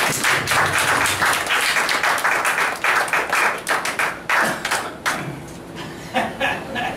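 Congregation applauding, a dense patter of many hands that thins out about five seconds in to a few last scattered claps.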